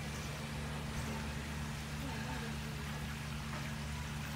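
Steady trickle of running pool water with a low, steady hum underneath.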